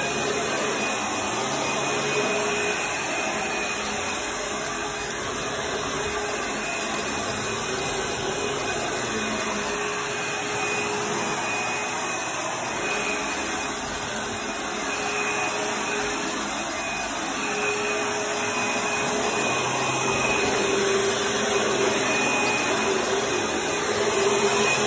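Dirt Devil Breeze upright vacuum cleaner running steadily, a whine over the rush of suction, as it is pushed across a shag rug and a wood floor. It gets a little louder near the end.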